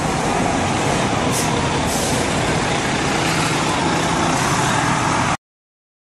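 Tour bus idling close by: a steady engine rumble under outdoor street noise, cutting off abruptly about five seconds in.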